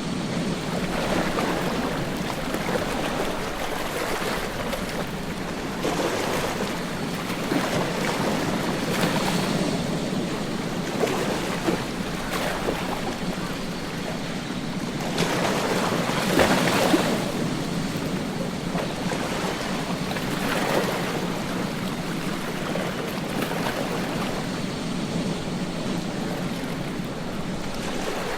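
Ocean surf breaking on a beach: a steady wash of waves that swells and eases every few seconds, with the biggest surge about sixteen seconds in.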